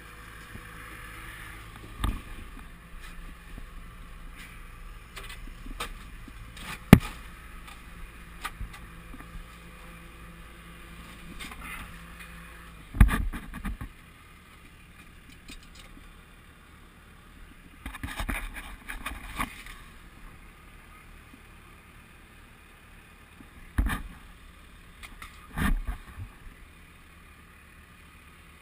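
A handful of sharp knocks and clunks from the body of a wrecked demolition-derby truck, its engine dead, as it is moved across the muddy arena. Under them is a low, steady engine hum that drops away about halfway through.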